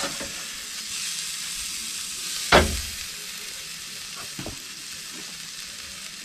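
Pork shoulder steaks sizzling steadily on a propane barbecue grill grate, with a sharp clack about two and a half seconds in and a lighter one a couple of seconds later.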